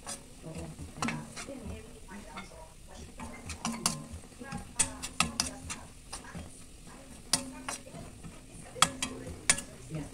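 Metal spatula scraping and clinking against a stainless steel wok as minced garlic is stirred in hot oil, over a frying sizzle. The scrapes come irregularly, several in quick succession around the middle and a few sharp ones near the end.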